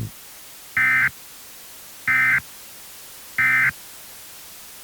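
Emergency Alert System end-of-message data bursts: three short, identical electronic screeches about a second apart, over a steady low hiss. They signal that the alert message has ended.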